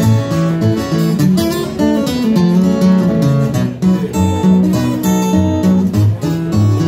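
Acoustic guitar playing a ragtime blues tune, with a steady alternating bass under the melody notes.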